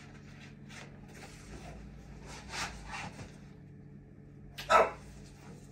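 Paper wrapping of a large flower bouquet rustling as it is handled, with one short, louder burst of sound near the end.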